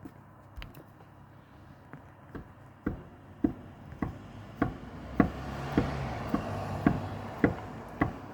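Sharp, evenly spaced taps or knocks, about two a second, starting about three seconds in, over a rushing noise that swells and fades in the middle.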